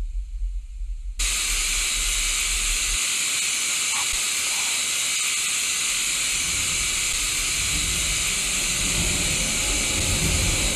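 A low rumble, then about a second in an abrupt cut to the loud, steady hiss of analogue television static: white noise from a TV receiving no signal.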